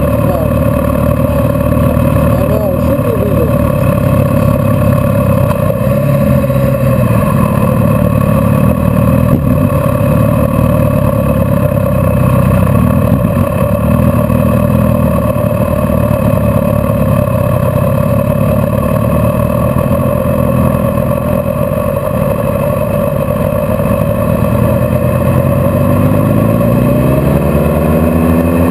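Vehicle engine running at low speed in slow-moving traffic, its pitch then climbing steadily over the last few seconds as it accelerates.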